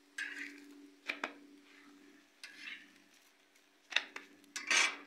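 Metal utensil clicking and scraping on a hot flat griddle where parathas are frying, with a few sharp clicks and short scrapes and the loudest scrape near the end, over a steady low hum.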